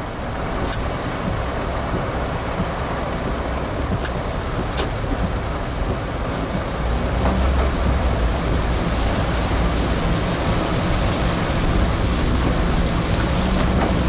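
A car driving through heavy rain on a wet road, heard from inside the car: a steady hiss of rain and tyre spray over a low engine and road drone, which grows louder about halfway through. A few faint clicks in the first few seconds.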